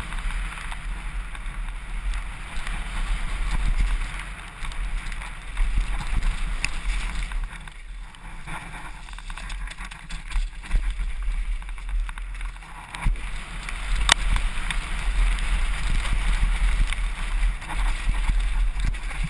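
Wind buffeting a helmet camera's microphone over the hiss and crunch of mountain bike tyres on a wet dirt and gravel trail, with a sharp knock about fourteen seconds in.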